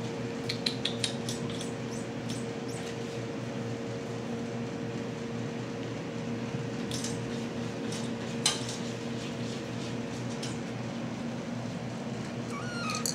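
Light clicks and clatters of hard plastic: a quick cluster about half a second in, a few more later and one sharper click about two-thirds of the way through, typical of kittens batting at plastic ball-track toys. A steady low hum runs underneath throughout.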